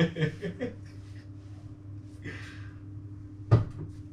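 A single sharp knock about three and a half seconds in, over a steady low hum.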